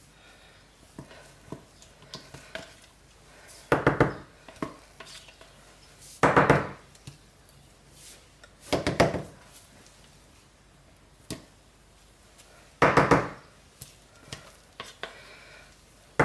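A utensil scraping and knocking against a pot or soap mold in four short bursts a few seconds apart, as thick, fast-setting cold-process soap batter is worked.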